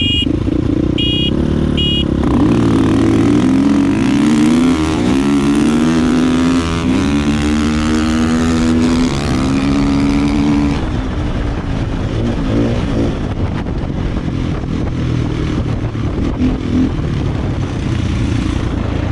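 A motorcycle horn beeps three times, about a second apart, as a start signal. Then the KTM 450 EXC's single-cylinder four-stroke engine revs hard under full acceleration, its pitch climbing and dropping back several times as it shifts up through the gears. About eleven seconds in it eases off to lower, steadier running.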